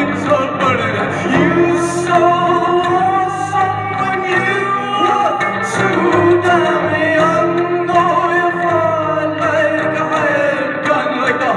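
A live solo vocalist singing long, sliding notes into a microphone over looped music with low held bass notes.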